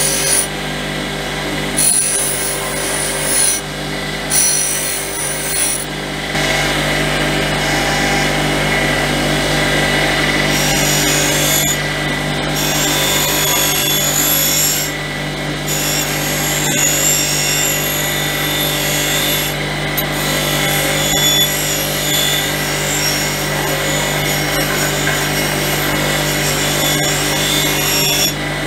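Bench grinder running with a steady motor hum while a thin metal compressor plate is held against its spinning wheel, giving a rasping, scraping grind. The grinding breaks off briefly several times as the plate is lifted and turned, while the motor keeps running.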